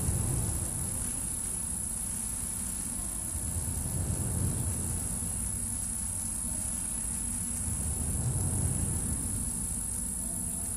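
Deep electronic drone that swells and eases every few seconds, with a steady thin high-pitched tone held above it.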